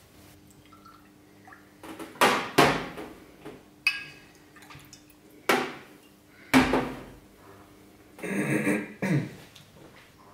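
Glass vodka bottle and shot glasses knocking and clinking on a tabletop as vodka is poured: a string of sharp clinks and knocks, the loudest with a deep thud about six and a half seconds in.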